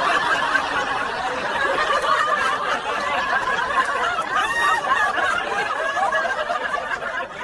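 Several people laughing hard together, their laughs overlapping in one continuous burst.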